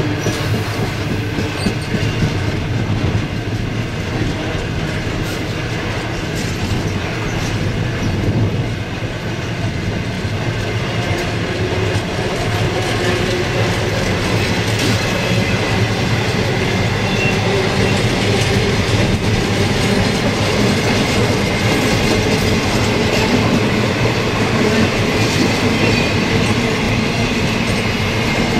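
Long freight train's wagons rolling across a rail bridge: a steady rumble with the clickety-clack of wheels over the rail joints, and a few faint wheel squeals in the second half.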